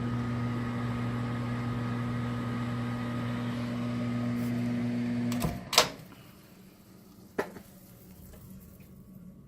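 Microwave oven running with a steady hum while heating a glass of water, which has come to the boil. About five and a half seconds in the hum stops and a loud click follows, with another smaller click about two seconds later.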